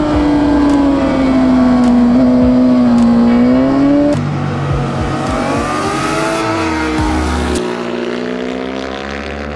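Suzuki GSX-R600 inline-four sportbike engine heard onboard at race pace: the revs fall steadily as the bike slows into a corner, then climb again as it pulls out. The sound changes abruptly about two seconds before the end.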